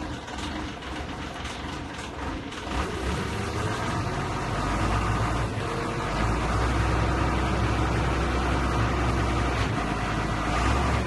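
Forklift engine running steadily as the forklift, loaded with a large stone block, drives slowly onto a laminated glass panel. Its low rumble grows louder about three to four seconds in.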